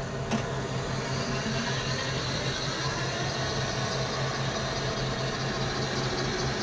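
Battery-powered Mean Green riding mower running with a steady electric hum and a low drone, with a brief click about a third of a second in.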